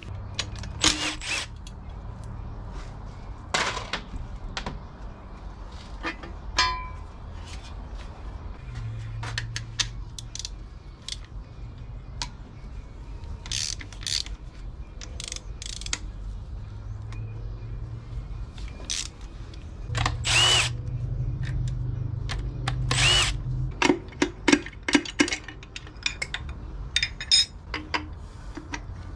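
Engine disassembly sounds: metal parts and hand tools clinking and knocking, with a power tool running in short bursts, over background music.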